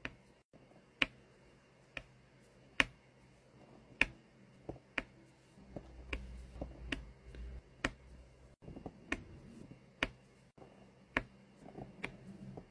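Diamond painting drill pen clicking as square resin drills are picked up and pressed onto the adhesive canvas: sharp separate clicks at an uneven pace, about one or two a second.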